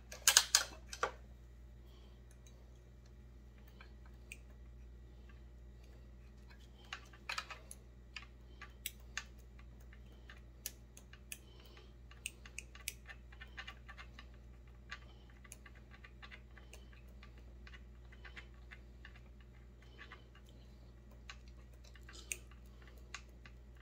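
Scattered light metal clicks and scratches from a small drill bit worked by hand into a stopped-up hole in a McCulloch PM 700 chainsaw's cylinder, with a louder cluster of clicks about a second in and another around seven to nine seconds in. A steady low hum runs underneath.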